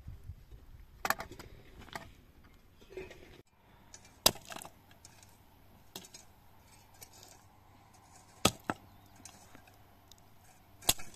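Axe chopping firewood: single sharp blows several seconds apart, one of them a quick double strike, each cracking into the wood. Before that, a few lighter knocks of digging tools in stony earth.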